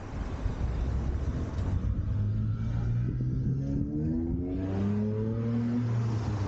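A motor vehicle accelerating away in city traffic, its engine tone climbing steadily for a couple of seconds in the middle, over a steady low engine hum and street noise.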